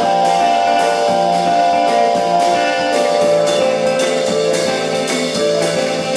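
Live band playing an instrumental passage: electric guitars and a Nord Electro 4 keyboard holding ringing notes over steady drum and cymbal hits.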